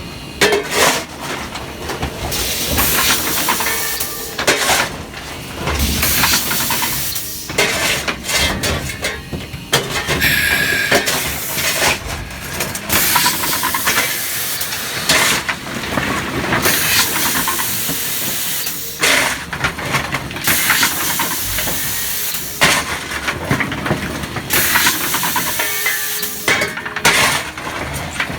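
Steam locomotive hissing steam at close range, loud and uneven, rising and falling in surges and short sharp bursts. The engine is Denver & Rio Grande Western 491, a narrow-gauge K-37 Mikado.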